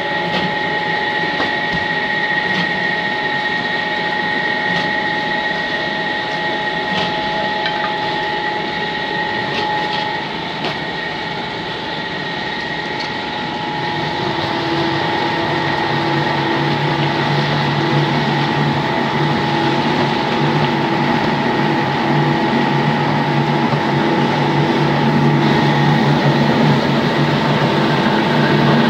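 Spindleless veneer peeling lathe running: a steady electric-motor whine over mechanical clatter, with a few knocks in the first ten seconds. About halfway through a deeper hum joins and the sound grows a little louder.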